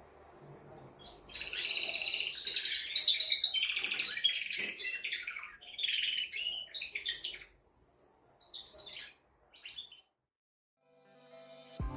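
Male domestic canary singing: long runs of rapid high-pitched trilled rolls, breaking into a few short phrases and stopping about ten seconds in.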